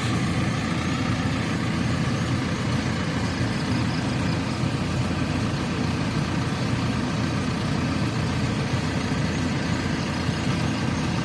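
Heavy truck engine running steadily, a constant low engine sound with no changes in pitch or level.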